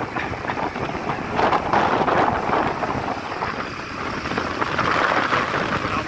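Wind rushing over the microphone of a moving motorcycle, with road and engine noise underneath, swelling in gusts.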